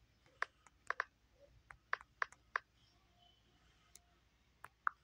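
Fingertip taps on a phone's touchscreen keyboard while typing a search: a quick, irregular run of light clicks in the first half-second to two and a half seconds, then two more near the end.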